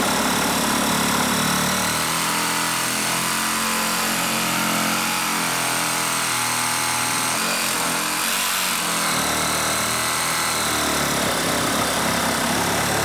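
DeWalt Atomic DCS369 20V compact reciprocating saw cutting through a wooden board under heavy feed pressure, the blade running steadily through the wood.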